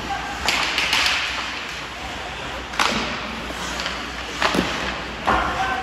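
Ice hockey play: several sharp cracks of sticks striking the puck and ice, over steady rink noise.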